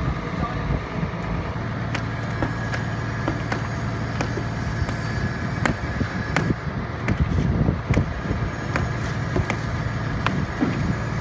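Boom truck's engine running steadily with a low, even hum. Scattered sharp clicks and knocks sound over it, more of them in the middle.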